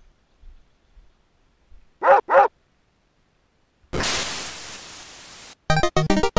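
Two quick dog-like barks, each rising and falling in pitch, about two seconds in. Then a steady hiss lasting about a second and a half that tapers off, and a fast run of chiptune notes near the end.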